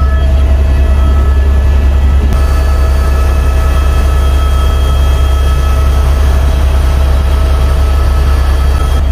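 Helicopter cabin noise in flight: a loud, steady drone of engine and rotors with a deep hum underneath and a few steady whining tones above it. The tone shifts slightly about two seconds in.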